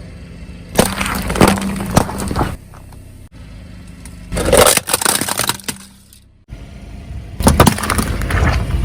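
Objects crunching, cracking and breaking under the weight of a car, in three separate bursts, over a low steady hum.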